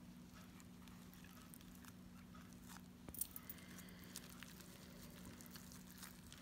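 Near silence: faint crackling and light taps of hands rolling a nori sheet of sushi rice and fillings, with a small flurry of ticks about three seconds in, over a low steady hum.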